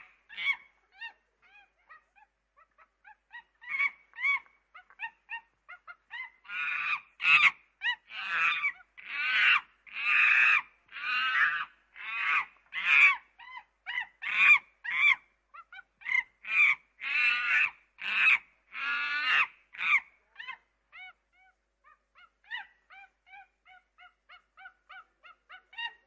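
Primate call sequence: a few short soft hoots, building about six seconds in to a run of loud whooping calls roughly one a second, then tapering back to soft short hoots near the end.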